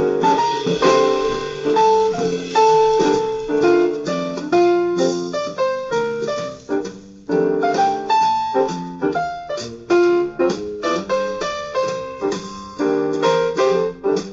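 Background instrumental jazz led by piano, notes struck and decaying in a lively rhythm.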